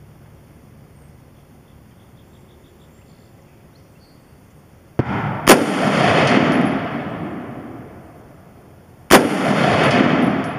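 Two shots from a DPMS Oracle AR-15 rifle firing 5.56 NATO full-metal-jacket rounds, about three and a half seconds apart. Each sharp crack is followed by a long rolling echo that dies away over a couple of seconds.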